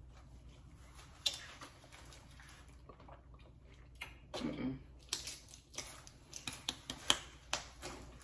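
Faint mouth clicks and lip smacks from people sucking on a very sour apple candy, coming thicker in the second half, with a brief murmur of a voice about four and a half seconds in.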